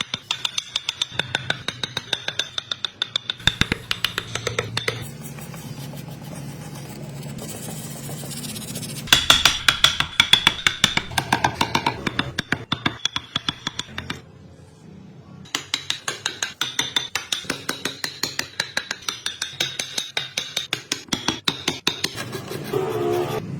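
Background music with a steady, quick percussive beat, dropping out briefly about two-thirds of the way through.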